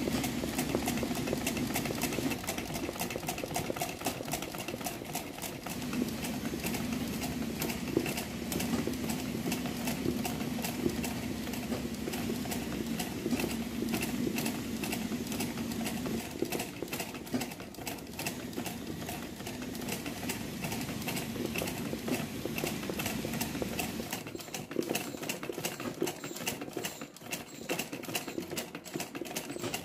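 Sewing machine stitching hand-guided embroidery through fabric in a hoop: a fast, steady needle clatter over a low running hum.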